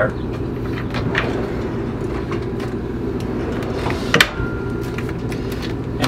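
Steady low machine hum, with a few faint clicks and a single sharp knock about four seconds in.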